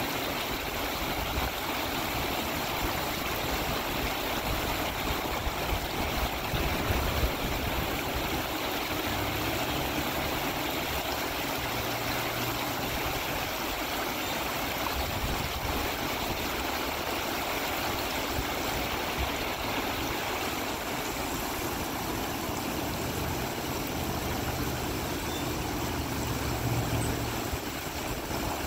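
Shallow, rocky stream rushing over riffles: a steady rush of flowing water. A faint low hum shows twice, about a third of the way in and again near the end.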